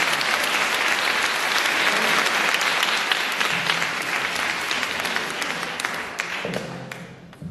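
Audience applauding, the clapping dying away about six to seven seconds in.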